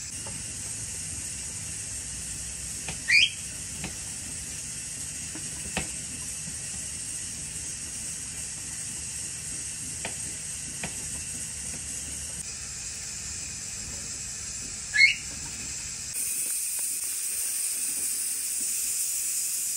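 A pet bird gives two short, sharp, rising chirps about twelve seconds apart, over a steady hiss, with a few faint knife taps on a wooden cutting board as strawberries are sliced.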